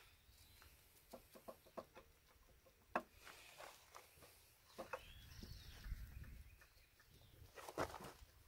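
Faint, scattered metal clicks and taps from hands wiggling and pulling at the oil pump inside an upturned John Deere 6466 engine block, the sharpest tap about three seconds in; otherwise near silence.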